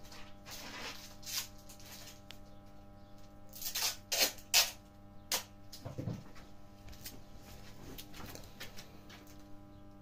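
Adhesive tape being pulled off the roll and pressed down by hand: short scratchy rips, several in quick succession about four to five seconds in, with small handling clicks. A steady low hum runs underneath.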